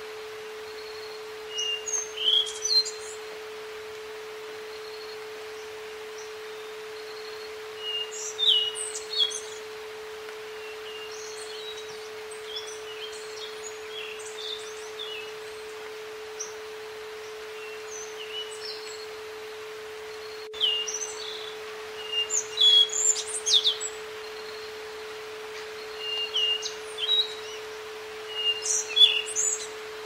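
A steady pure tone from an isochronic-tone track sounds under a recording of wild birdsong over a faint even hiss. Several birds chirp and call in scattered bursts, busiest and loudest in the second half.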